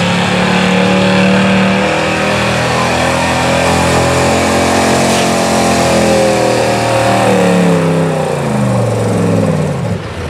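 1977 Ford F-350 pickup's engine running at high revs under full load, dragging a weight-transfer sled over dirt. Near the end the revs fall away as the truck slows to a stop under the sled's weight.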